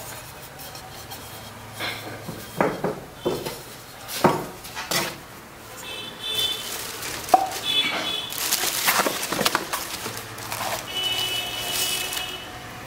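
Cookware being handled during unboxing: metal pans knocking against one another and the box, with a few brief high ringing tones, and a stretch of plastic wrap and cardboard packaging rustling about two-thirds of the way through.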